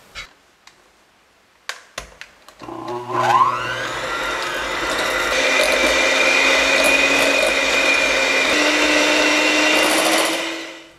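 Electric hand mixer starting up about two and a half seconds in, its motor whining up to high speed and then running steadily as the beaters whip butter in a glass bowl. It winds down and stops near the end; a few light clicks come before it starts.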